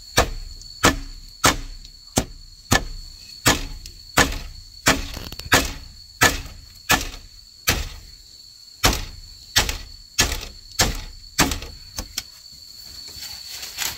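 About seventeen sharp, evenly spaced knocks, roughly one and a half a second, as a nail is hammered through the end of a bamboo crossbar into a green bamboo post. There is a short break just before eight seconds in, and the blows stop about twelve seconds in. Insects shrill steadily in the background.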